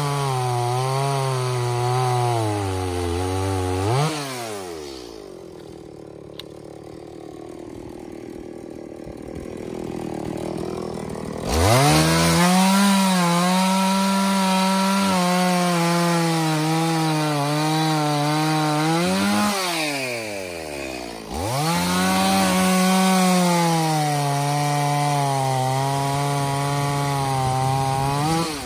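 Stihl MS 180 chainsaw's two-stroke engine at high revs cutting wood, its pitch wavering under load. About four seconds in it drops back and runs quietly, then revs sharply back up to cut near twelve seconds, eases off briefly around twenty seconds, and cuts again.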